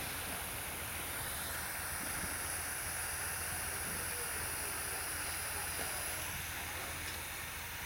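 Steady hiss of outdoor background noise, even and unbroken, with no distinct sounds standing out.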